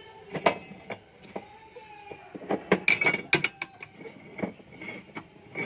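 Spanner clinking and knocking against the metal fittings of a washing machine's gearbox cable mount, an irregular run of sharp metallic clicks with a short ring, most of them and the loudest about three seconds in.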